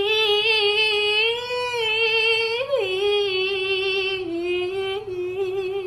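A high voice holding one long sung note with a wavering pitch, which bumps up briefly about three seconds in and steps slightly lower a little past four seconds.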